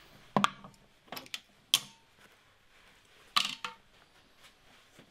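Several sharp metallic clinks and knocks as a stainless-steel magnetic parts tray is set down and handled, with a removed radiator cap in it.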